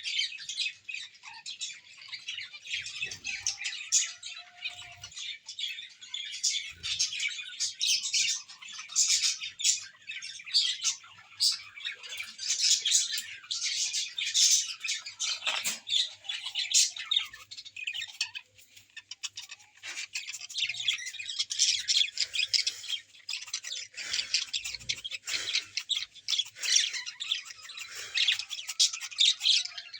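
A group of small birds chirping and squawking, many calls overlapping without pause.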